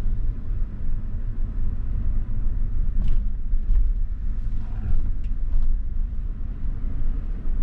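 Steady low rumble of a 2020 GMC Sierra pickup's 2.7-litre turbo four-cylinder running, with a few faint clicks.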